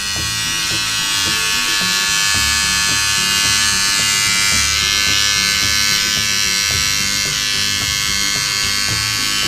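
Small battery-powered toothbrush motor buzzing steadily, over background music.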